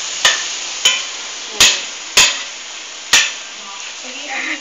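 A metal cooking utensil knocking against a pan five times, sharp single clinks spaced roughly half a second to a second apart, over a faint steady sizzle of frying.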